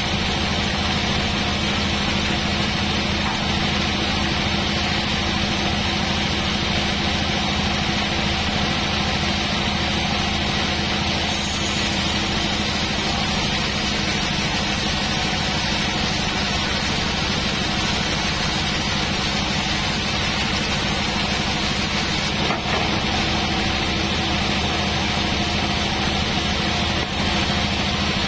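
Large sawmill band saw running steadily as its blade cuts lengthwise through a thick teak slab, a constant machine hum with a dense hiss of the cut. A brighter, higher hiss joins about eleven seconds in and stops about eleven seconds later.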